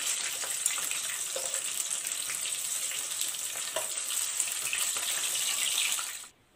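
Batter-coated chicken strips sizzling and crackling as they shallow-fry in medium-hot oil, a steady hiss that cuts off suddenly near the end.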